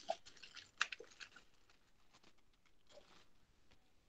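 Faint scattered clicks and crackles picked up by an open microphone on a video call, mostly in the first second and a half.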